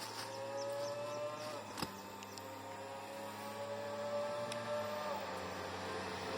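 Vehicle engine running at a distance with a steady drone, its pitch climbing slowly and dipping twice as the throttle changes. A single sharp click about two seconds in.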